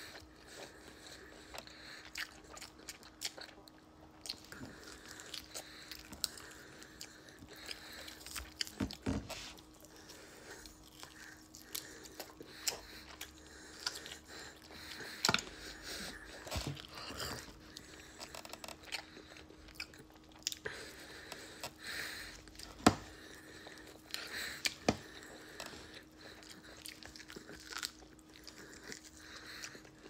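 Close-up mouth sounds of a person biting and chewing meat off a T-bone steak bone: wet chewing broken by scattered sharp clicks, the loudest about 23 seconds in.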